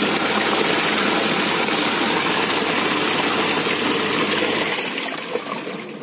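Used Akari twin-tub washing machine running: a steady motor hum under rushing water, dying down near the end.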